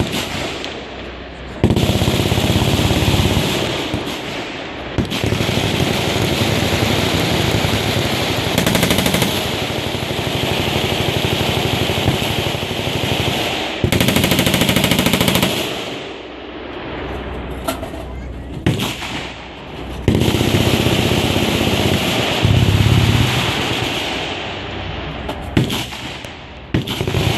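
Machine-gun fire: long strings of rapid automatic shots running together, broken by a few short lulls, about a third and two thirds of the way through.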